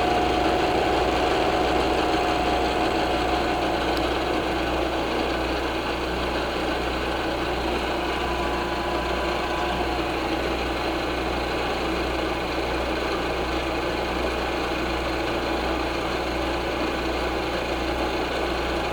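Milling machine cutting aluminium on a single pass along one face of an octagon: the spindle and cutter run steadily through the metal, with a thin whine over the cutting noise for the first four seconds or so.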